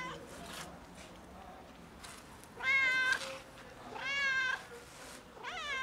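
Fluffy stray cat meowing loudly, asking for food: the tail of one meow at the start, then three long meows about a second apart, the first of them the loudest and the last rising in pitch.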